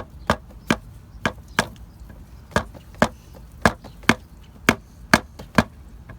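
Hammer knocking on the wooden form boards of a concrete slab frame, about a dozen sharp knocks a little under two a second in an uneven rhythm, tapping the form level.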